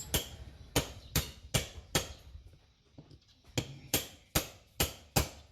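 Hammer blows, about ten sharp strikes in two quick runs with a short pause between them.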